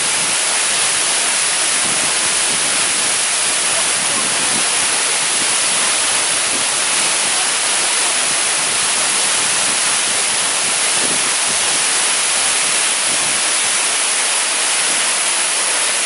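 Jungle waterfall pouring over rocks at close range: a loud, steady rush of falling water.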